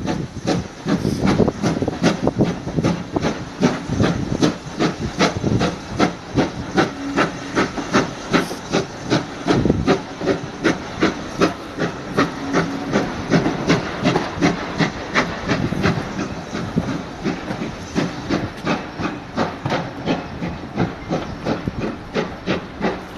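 Steam locomotive working hard as it hauls its train away, its exhaust beating in a steady rhythm of a few chuffs a second over a hiss of steam.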